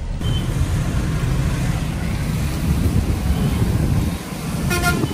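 Steady low rumble of a car on the move heard from inside its cabin, engine and tyre noise on the road, with a brief pitched sound near the end.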